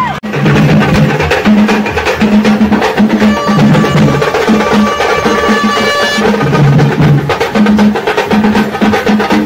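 Festival street drum band playing a fast, loud rhythm on big bass drums and hand-struck drums. A steady high held note joins in over the drumming for a few seconds in the middle.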